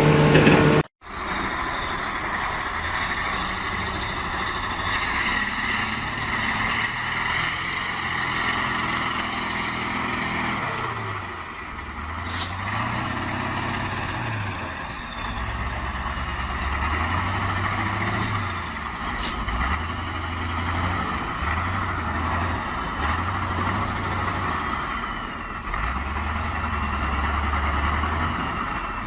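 A loud steady tone cuts off abruptly about a second in. Then a heavy vehicle's engine runs, its low note rising and falling in steps as it revs, over a steady rushing hiss.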